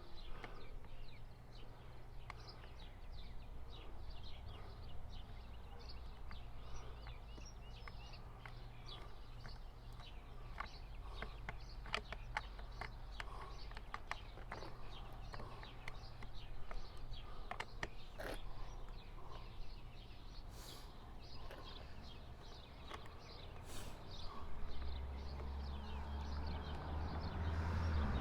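Light, irregular clicks and taps of hand tools and small metal parts being handled while a chainsaw is taken apart, over a low steady hum that gets louder near the end.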